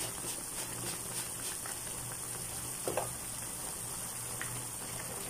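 Vegetable soup boiling hard in a pan on a gas stove, bubbling and crackling steadily, with one brief louder pop about three seconds in.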